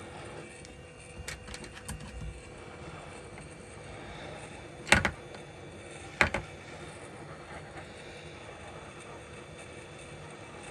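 Steady hiss of a hot-air rework station blowing, with a few light clicks early on and two sharp knocks about five and six seconds in.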